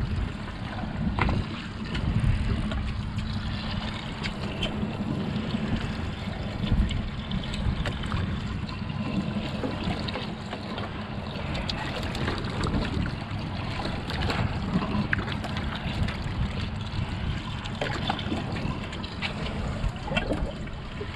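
A boat's engine running with a steady low hum, with water sloshing and splashing around the hull and scattered small knocks.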